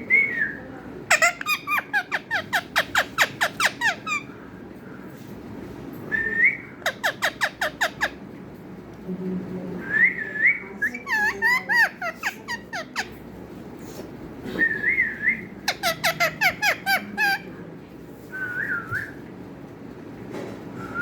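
Pet parrot whistling short rising-and-falling notes, broken up by several rapid trains of sharp chirping calls, each train lasting a second or more.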